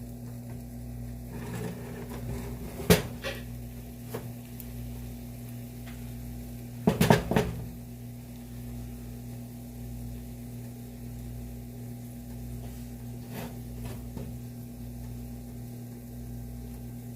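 Steady low hum with a few clatters of kitchen utensils and cookware: a sharp knock about three seconds in, a louder cluster of knocks around seven seconds, and a lighter one near the end.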